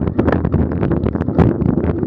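Wind rushing over an action camera's microphone while a mountain bike rides a bumpy dirt singletrack, with a dense run of knocks and rattles as the bike and camera jolt over the ground.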